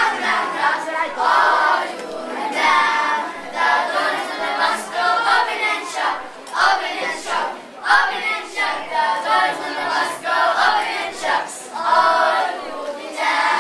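A group of boys singing together in chorus, in short phrases.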